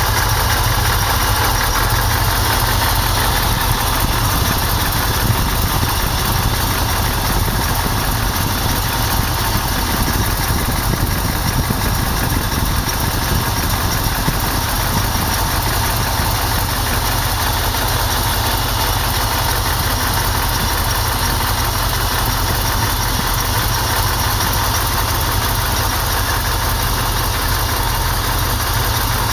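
1989 Pontiac Firebird engine idling steadily while its spark plug wires arc. The owner takes the arcing to mean the wires are worn and due for replacement.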